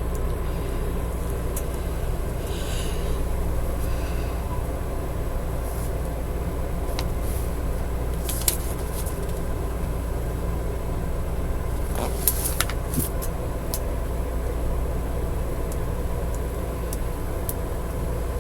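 Steady low rumble with a few faint clicks and ticks.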